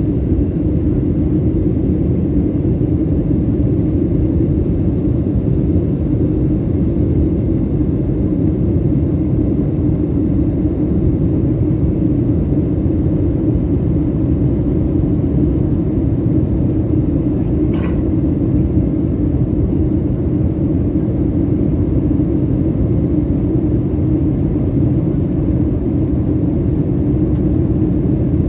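Steady jet engine and airflow noise inside an airliner cabin during the climb after takeoff. A single faint click comes about two-thirds of the way through.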